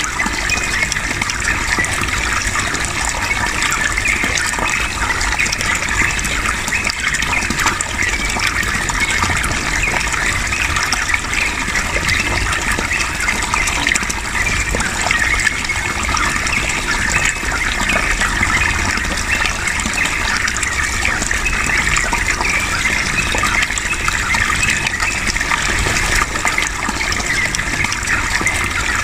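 Steady running water, with a yellow-vented bulbul (trucukan) singing its long, rapid chattering song over it.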